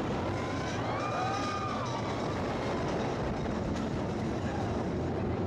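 Roller coaster train running fast along the track, a steady rumble with wind rushing past, and a brief wavering high squeal about a second in.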